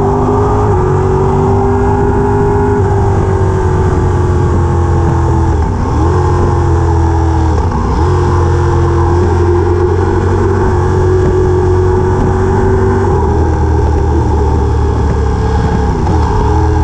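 A vehicle engine running steadily under load, its pitch dropping sharply and picking up again three times.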